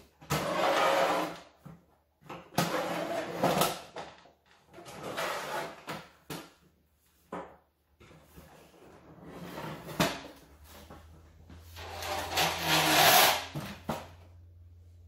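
Thin corrugated galvanized sheet-steel panels of a partly bolted hexagonal raised garden bed flexing, scraping and rattling as the frame is lifted and turned on sawhorses, in five bursts of a second or two each, with a sharp knock about ten seconds in.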